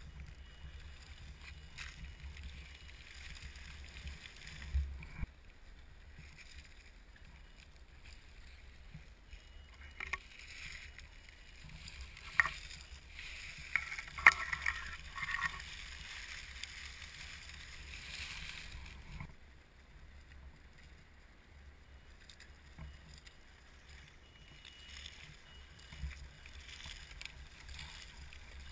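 Axial SCX10 scale RC crawler driving over dry fallen leaves: leaves crunching and rustling under its tyres, busiest in the middle with a few sharp cracks, over a low rumble.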